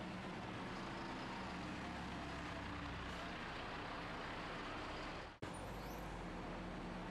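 Steady outdoor background noise with a low hum, broken by a brief dropout about five seconds in.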